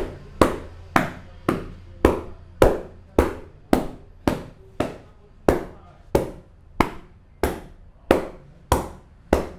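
Hands striking the head in a head massage: about sixteen sharp slaps in a steady rhythm of just under two a second, each ringing briefly.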